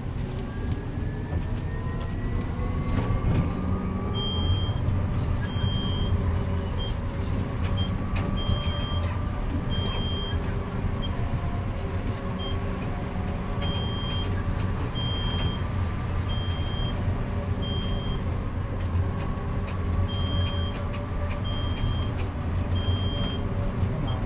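Interior of a Golden Dragon Astar electric city bus under way: the 100 kW drive motor whines over a steady road rumble. The whine rises in pitch over the first few seconds, then drifts up and down with speed. From about four seconds in, a short high electronic beep repeats roughly once a second, with a few gaps.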